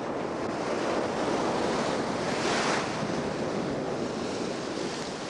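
Glacier ice calving and crashing into the sea: a long rush of tumbling ice and splashing water that swells about two and a half seconds in, then eases off.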